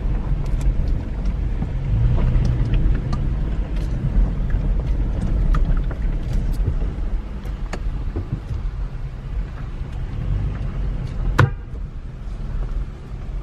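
Toyota Tacoma pickup driving on a dirt back road: a steady low engine and road rumble with scattered small clicks and knocks, and one sharper knock about eleven seconds in, after which it runs a little quieter.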